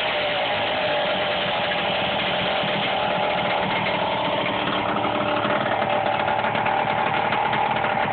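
Indian minibike's small single-cylinder engine idling steadily after a carburettor rebuild.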